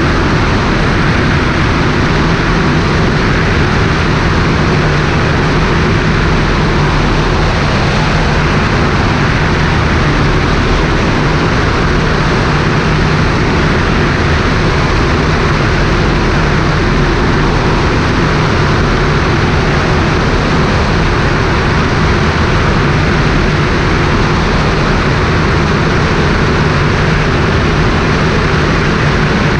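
Cessna 150's four-cylinder Continental O-200 engine and propeller running steadily in cruise flight, with a constant rush of airflow, heard from a camera mounted outside under the wing.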